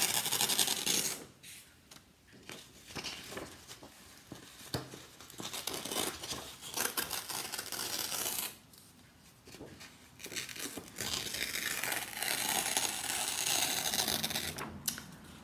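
Sheet of construction paper being torn by hand, in several stretches of tearing with short pauses between them; the longest tear comes in the last third.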